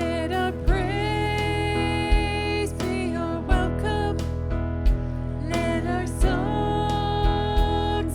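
Worship music: a singer holding long notes over sustained keyboard chords, with a kick drum beat about every second and a half.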